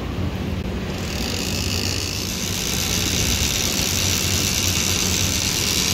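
Boat engine running steadily at low trolling speed, a steady low hum, with a high hiss that builds from about a second in.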